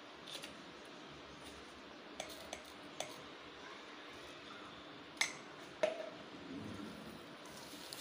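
Scattered light clinks and taps on a steel plate of mashed potato, over a low steady hiss; the two loudest come about five and six seconds in.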